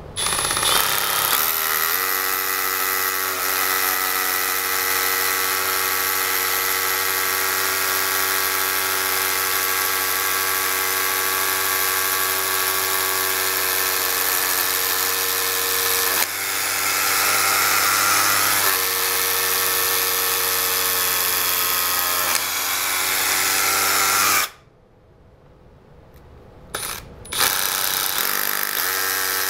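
Cordless rotary hammer drilling a hole into a concrete wall with a masonry bit, running steadily for about twenty-four seconds. It stops, gives one short burst, then drills again near the end.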